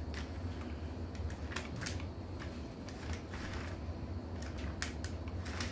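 Light plastic-and-metal clicks and scrapes of a Bachmann HO-scale locomotive's wheels against the rails as it is worked onto the track by hand, a few scattered clicks over a steady low hum.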